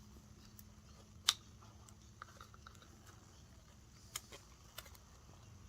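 A few light clicks and taps of cardboard model pieces being handled and fitted together, the sharpest about a second in, over a faint room hum.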